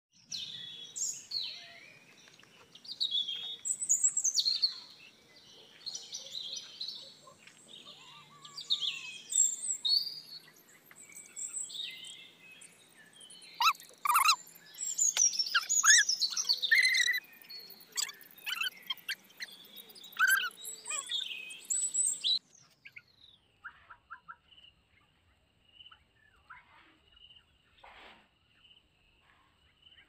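A large flock of birds calling, with many overlapping chirps and twitters. About twenty-two seconds in, the calling cuts off abruptly, leaving a faint steady high tone and a few scattered chirps.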